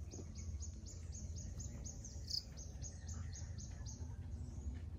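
A small bird chirping: a quick run of short, high chirps, about four a second, with one louder chirp a little past halfway. A low steady hum runs underneath.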